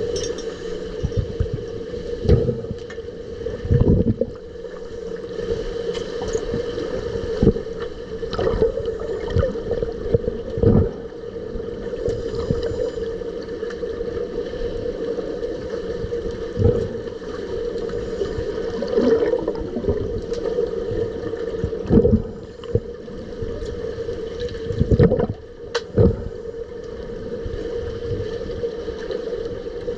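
Underwater sound in a swimming pool, picked up by a submerged camera: a steady, muffled hum with bubbling and about ten irregular dull knocks as finned swimmers splash and struggle nearby.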